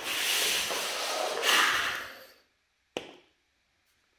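Battery-and-neodymium-magnet electromagnetic train rasping through a bare copper wire coil, a loud hiss that swells twice and dies away after about two and a half seconds. A single sharp click follows about three seconds in.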